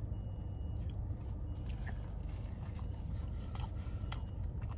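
A sauce packet being squeezed and a sandwich handled: a few faint clicks and rustles over a steady low rumble inside a car.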